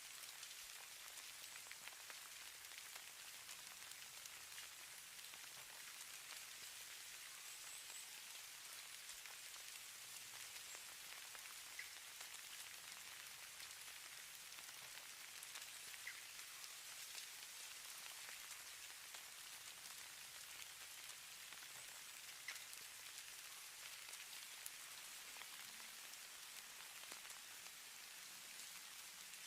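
Faint, steady hiss of falling precipitation, given as snowfall, with soft scattered ticks as flakes or drops land.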